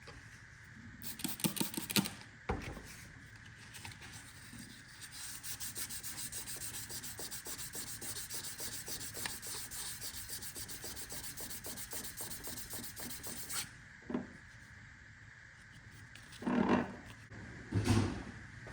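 Fine-grit sandpaper rubbing back and forth over a JB Weld-filled seal groove on a steel outboard propeller shaft, in quick, even strokes for several seconds in the middle, smoothing the repair to a seal surface. A few short clattering handling noises come near the start and near the end.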